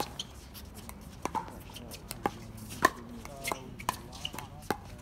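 Pickleball rally: paddles striking the hollow plastic ball, a string of sharp pocks at an irregular pace, some in quick pairs.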